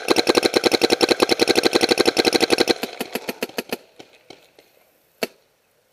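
Paintball marker firing in rapid bursts, about a dozen shots a second for nearly three seconds, then thinning to scattered fainter shots, with one sharp single shot about five seconds in.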